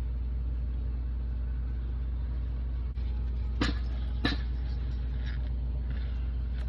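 A steady low mechanical hum, with two sharp clicks about two-thirds of a second apart a little past the middle.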